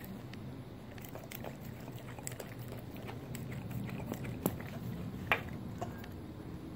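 American Bully dog licking and lapping carrot baby food off a plastic toy spoon: wet mouth smacks with many short sharp clicks, two of them louder about halfway through.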